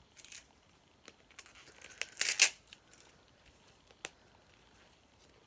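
Plastic shrink wrap being torn and crinkled off a small plastic capsule, in short rustling bursts with the loudest about two seconds in, then a single sharp click near four seconds.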